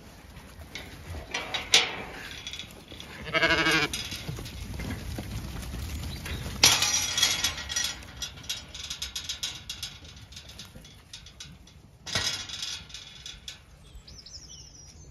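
A Zwartbles sheep gives one quavering bleat a few seconds in, among bursts of shuffling and rustling from the flock moving over muddy ground.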